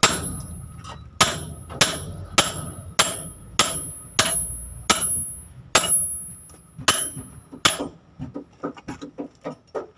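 A steel hammer striking the top of a Hino truck's kingpin, set in its steering knuckle: about eleven ringing metal-on-metal blows, roughly one every half second to second, stopping about eight seconds in, followed by a few light taps.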